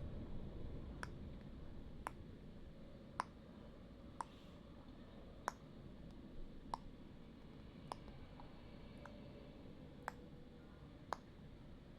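Faint, sharp single clicks, about one a second and slightly uneven, over a low steady rumble.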